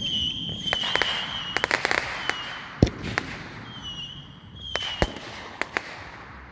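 Consumer fireworks going off: several high, wavering whistles and a string of sharp cracks, with two louder bangs about three and five seconds in.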